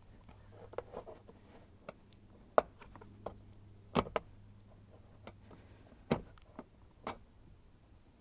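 Screwdriver working against a screw and hard plastic trim: a few sharp, irregular clicks and taps, the loudest about two and a half, four and six seconds in.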